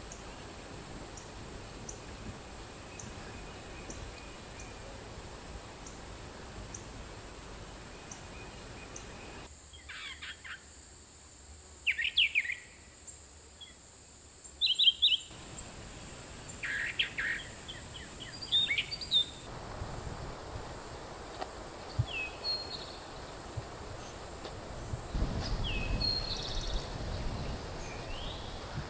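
Birds chirping: clusters of short calls begin about ten seconds in and repeat through to the end, over a steady outdoor background hiss.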